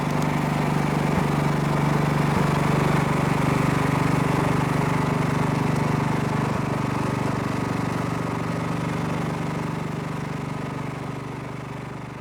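Riding lawn mower engine running steadily, growing gradually fainter over the last few seconds.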